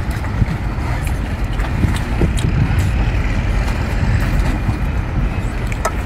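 Steady low wind rumble buffeting the microphone outdoors, with a few faint small smacks of eating mixed in.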